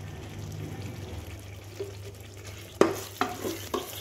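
A spoon stirs thick mutton masala in a pressure cooker pot, with a faint sizzle over a low steady hum. Near the end it knocks and scrapes against the pot several times, the first knock the loudest.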